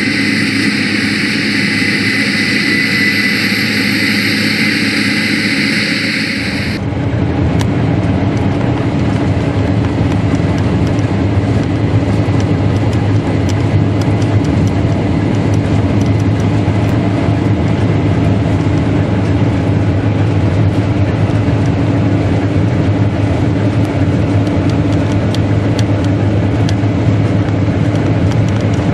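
Case IH 8120 Axial-Flow combine harvester running. For the first six seconds a steady high whine sits over the engine; then the sound changes suddenly to a lower, rougher machine rumble with faint scattered clicks.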